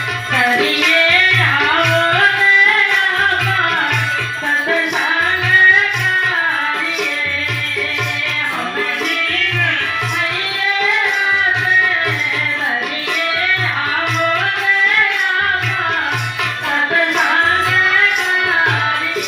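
Devotional bhajan music: a winding melody over a steady, repeating tabla beat.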